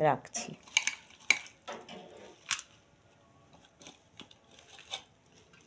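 Chopped wet hincha greens being handled and set by hand into a metal bowl: soft leafy rustles with a string of sharp clicks and taps against the bowl, busiest in the first three seconds and fainter after.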